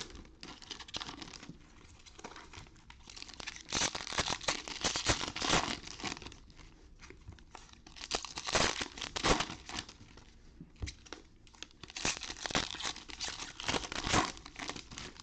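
Wrappers of 2021 Panini Score football card packs being torn open and crinkled, in several bursts of rustling a few seconds apart.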